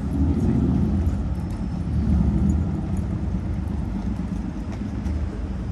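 Road traffic: motor vehicles passing close by with a low engine and tyre rumble, swelling near the start and again about two seconds in.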